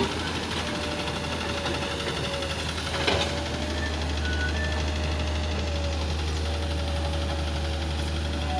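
Diesel engines of earthmoving machines running steadily with a knocking diesel clatter and a low drone. A brief sharp knock about three seconds in.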